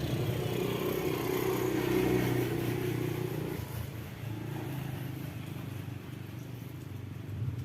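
A motor vehicle engine running as it passes, loudest about two seconds in and then fading away.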